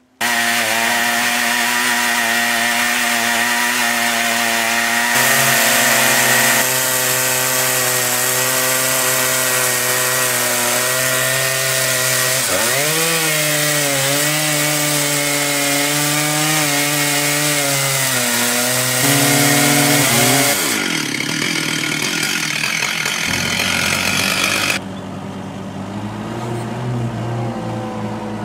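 Two Husqvarna chainsaws driving a double-ended chainsaw mill, running flat out as the long ripping chain cuts lengthwise through a log; their pitch dips briefly about halfway through under heavier load, then falls away about twenty seconds in. Near the end a telehandler's engine runs more quietly.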